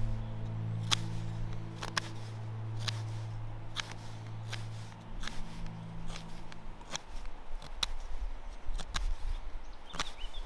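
Knife blade shaving and notching a small wooden stick to make a tent peg, with sharp short cuts about once a second. A low held drone of background music runs under the first seven seconds, then stops.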